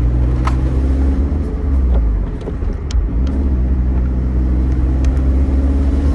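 Scion tC driving, heard inside the cabin: a steady low engine drone and road rumble that dips briefly a little over two seconds in, with a few faint clicks.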